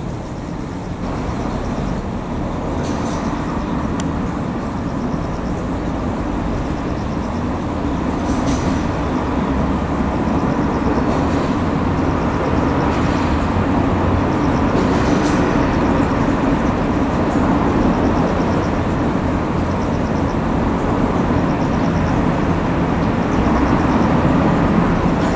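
A train moving slowly through a rail yard: a steady rumbling drone that grows gradually louder, with a few faint high-pitched ticks or squeaks from the wheels.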